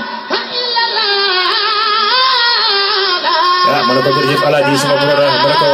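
A solo voice singing a high, ornamented melody that wavers up and down. About two-thirds of the way through, a deeper voice comes in beneath it, holding long steady notes.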